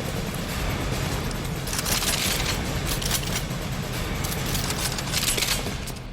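Shootout sound effects of gunfire and scattering debris, imitated by voice: a dense, continuous hiss with louder crackling bursts about two, three and five seconds in.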